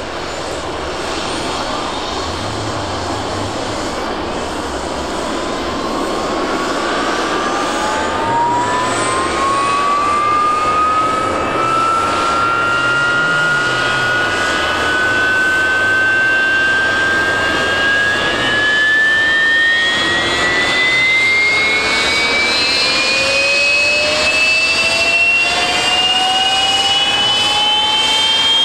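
Rolls-Royce Pegasus turbofan of an AV-8B Harrier II Plus starting up: several whining tones rise steadily in pitch over a growing rush as the engine spools up, with a second, lower whine joining and climbing about two-thirds of the way in.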